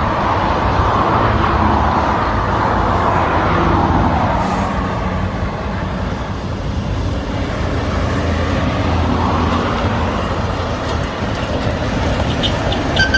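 Highway traffic passing close by: cars sweep past with falling tyre and engine noise, then a heavy-haulage truck's diesel engine grows louder as it nears and rolls past towing a long multi-axle jinker trailer. A horn starts to sound right at the end.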